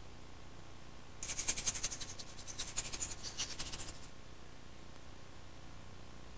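A quick, irregular run of light, high rattling clicks, like a shaker, starting about a second in and stopping about four seconds in, over faint steady hiss.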